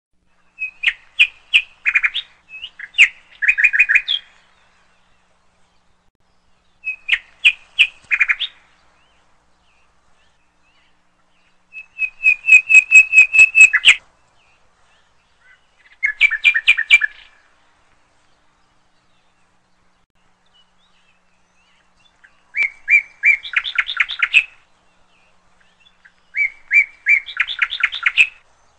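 A songbird singing in short phrases of fast repeated chirps and trills, seven phrases separated by pauses of one to five seconds.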